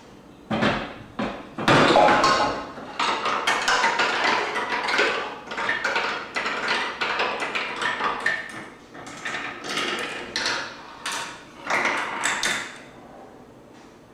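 Wooden Rube Goldberg marble machine running: marbles rolling and dropping through its wooden tracks and levers, a busy run of clacks and knocks that starts about half a second in and stops about a second before the end.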